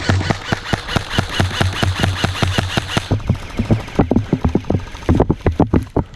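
Airsoft gun firing fully automatic: a fast, even stream of shots over a steady motor hum. The shots turn more irregular in the last couple of seconds.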